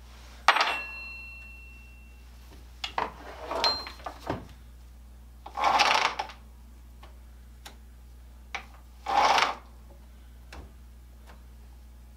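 Workbench handling noises from working on a chainsaw: a sharp metallic clank with a brief ring about half a second in, scattered clicks and knocks, and two short rasping scrapes of metal, one in the middle and one about nine seconds in, over a low steady hum.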